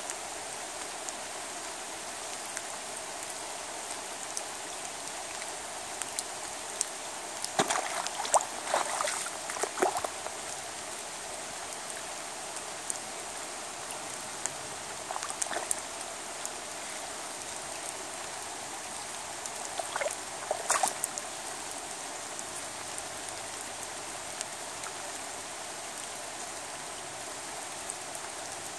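Steady rain falling on a calm river surface and wet bank, an even hiss. Three brief spells of louder, sharper clicks and taps stand out, the loudest about a third of the way in.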